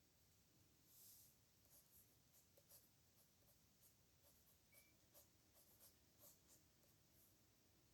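Faint pen scratching on paper in quick short strokes, with one longer stroke about a second in.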